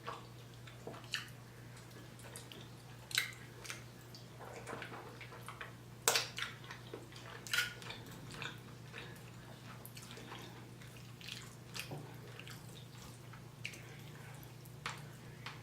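Close-up eating sounds of someone chewing curry chicken: scattered wet mouth clicks and smacks, the loudest about six seconds in, over a steady low hum.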